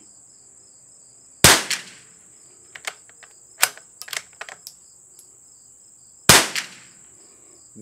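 Two .22 LR rifle shots from a CZ452 Varmint bolt-action rifle, about five seconds apart, each a sharp crack with a short echo. A few lighter clicks come between them.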